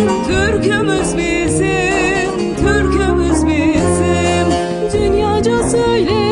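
A Turkish folk song (türkü): a singer's ornamented, wavering melody over sustained instrumental notes and a regular beat of about two strikes a second.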